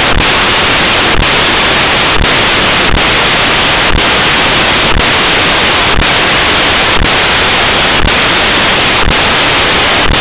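Passenger coaches and a trailing diesel locomotive passing close by, heard as a loud, steady rushing noise with a faint click about once a second.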